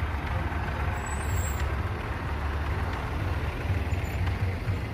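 Military cargo truck's diesel engine running with a steady, low-pitched sound as the truck moves slowly past close by.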